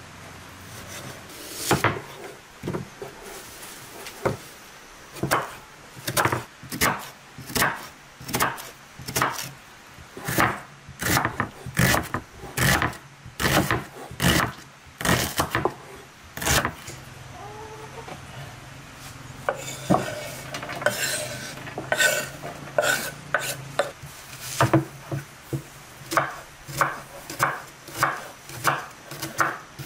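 Kitchen knife chopping on a wooden cutting board: repeated sharp knocks of the blade hitting the board, about two a second, with a brief quieter stretch just past the middle.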